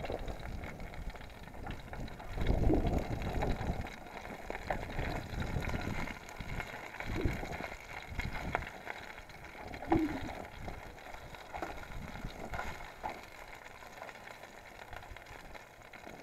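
Folding knife stirring and scraping in an aluminium mess tin on a small alcohol stove, with a few light clicks of blade on metal. Low gusts of wind rumble on the microphone, the loudest a few seconds in.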